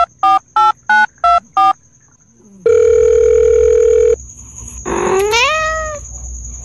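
Telephone keypad dialling tones, a quick run of short two-note beeps, dubbed onto a finger pressing a cat's face, followed by one long ring tone; then the cat meows once, rising in pitch.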